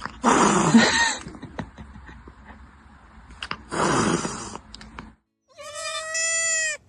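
Goat calling: two harsh, raspy cries of about a second each, then one long, steady bleat near the end.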